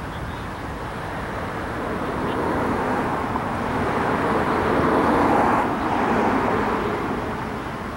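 A vehicle passing by: a broad rushing noise swells to its loudest about five seconds in, then fades, over a steady low rumble.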